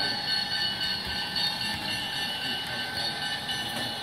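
HO-scale VIA LRC model train running along the layout track: a steady high-pitched whine of several tones over the rolling noise of the wheels.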